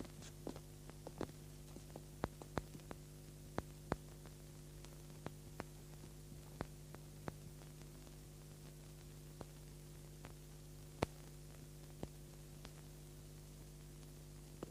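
A faint, steady low hum with irregular short clicks and ticks. The clicks come thickest in the first few seconds and thin out after.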